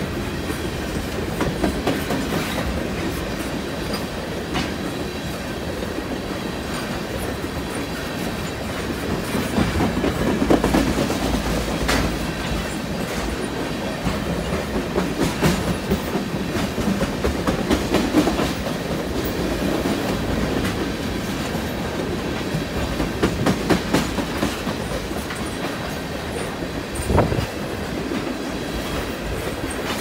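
Tank cars of a long CN freight train rolling past close by, a steady rumble with wheels clacking over rail joints. One loud clunk near the end.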